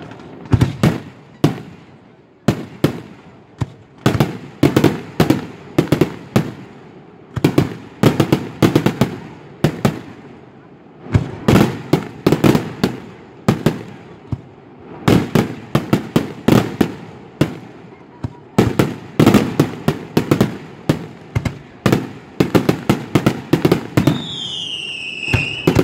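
Fireworks display: aerial shells bursting in rapid volleys of sharp bangs, in clusters separated by short gaps. Near the end a high whistle slides down in pitch over the bangs.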